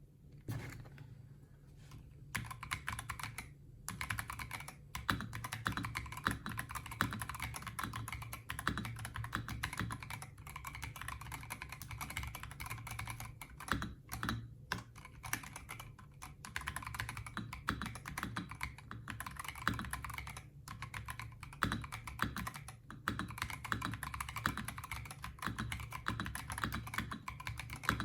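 Typing on a Fuhlen H75s gasket-mount mechanical keyboard with fully lubed Fuhlen Crystal linear switches on an aluminium plate: fast, continuous keystrokes starting about two seconds in, broken by a few brief pauses.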